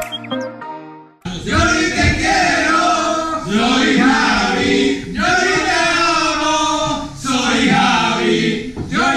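A group of men singing together loudly, in phrases of a second or two with short breaks between them. A short music passage with plucked tones stops just before the singing starts, about a second in.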